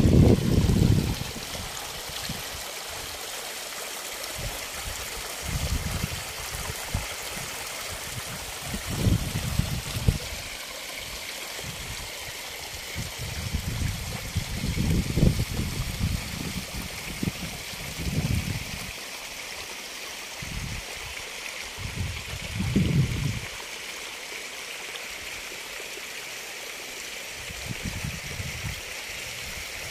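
Water gushing steadily from the gates of a low-pressure gated irrigation pipe and splashing into flooded furrows. Short low rumbles break in every few seconds.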